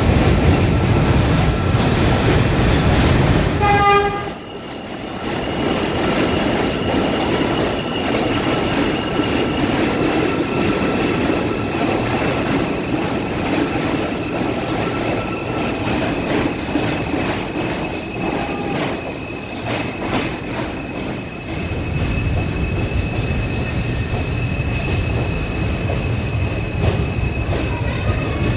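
R160A New York City subway train pulling into a station: wheels rumbling on the rails, then a short horn blast about four seconds in. After that comes a steady high-pitched wheel squeal as the train rolls slowly along the platform, with the rumble picking up again near the end.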